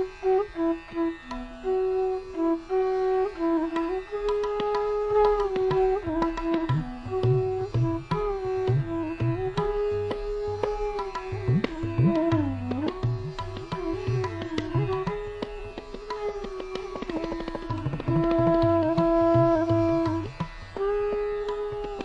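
Instrumental background music in an Indian classical style: a melody of held and sliding notes, joined by hand-drum strokes about four seconds in.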